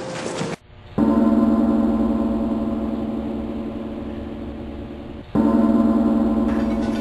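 A gong struck twice, about four seconds apart. Each stroke rings on with a deep, full tone that slowly fades. Before the first stroke there is a moment of scuffling from the sparring.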